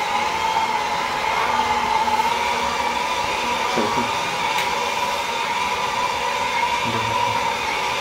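Small electric drive motor of a toy remote-control car whining steadily as the car drives across a concrete floor.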